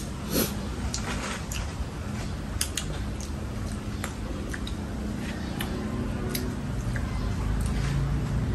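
Eating at a table: scattered light clicks and taps of utensils against bowls and plates, over low steady background noise.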